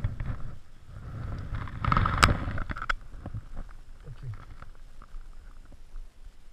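Handling noise on a body-worn camera's microphone as the wearer moves: a low rumbling and rustling with a few sharp clicks, loudest about two seconds in.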